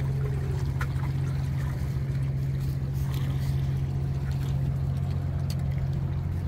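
Steady low drone of a boat engine running out on the water, with a few faint clicks.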